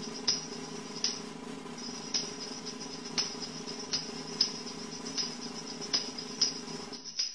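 Tambourine jingles shaken and tapped in single strokes, about one to two a second at an uneven pace. A steady low hum sits beneath and cuts off near the end.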